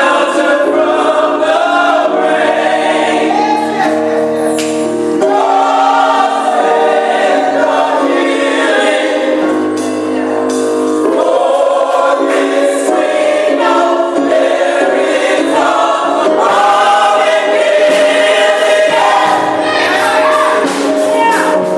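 Gospel choir singing with musical accompaniment, voices moving over sustained chords.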